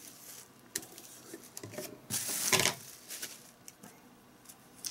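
Bubble wrap rustling as it is pulled off a plastic solar wall lamp, with light clicks and knocks of the lamp's parts being handled; the loudest rustle comes about two seconds in.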